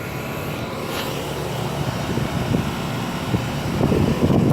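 A 2017 York 2-ton central air condensing unit with a Bristol reciprocating compressor running: a steady hum with several steady tones under the rush of the condenser fan. A gusty low rumble builds near the end.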